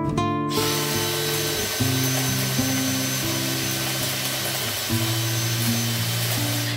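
A power tool running steadily with a thin high whine, starting about half a second in, over acoustic guitar background music.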